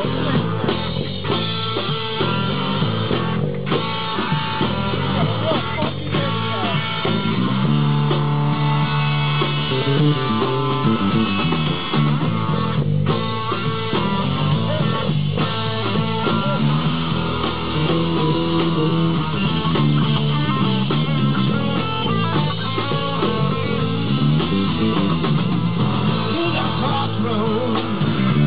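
Live amplified rock band playing: electric guitar, a custom purpleheart-bodied DP electric bass and a drum kit.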